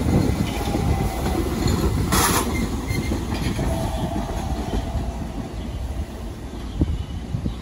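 R68 subway train running past on the rails and pulling away, its rumble and wheel clatter slowly fading, with a brief sharp hiss about two seconds in.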